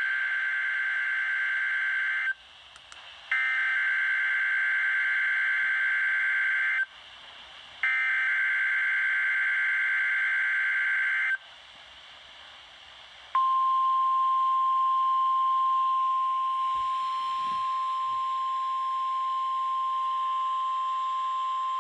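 NOAA Weather Radio test signal: three SAME (Specific Area Message Encoding) digital header bursts, each a buzzy data screech of about three and a half seconds with roughly a second's pause between them. About two seconds after the third, the 1050 Hz warning alarm tone begins as one steady, unbroken pitch. Together these make up the weekly test of the transmitter's alert signal that activates weather radio receivers.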